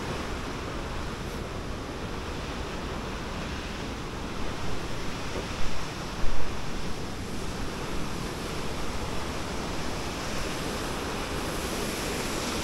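Steady rushing of the Ryuzu Falls waterfall, with wind rumbling on the microphone and a few short louder bumps about halfway through.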